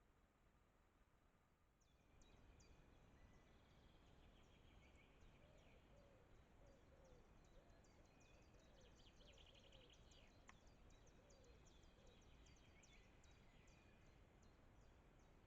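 Faint mixed birdsong from several birds, many rapid high chirps and trills, starting about two seconds in, over a steady background hiss.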